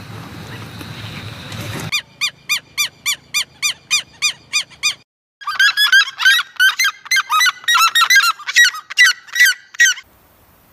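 A bird calling in a rapid series of short repeated notes, about four a second. After a brief pause it gives a second, faster and higher run of calls.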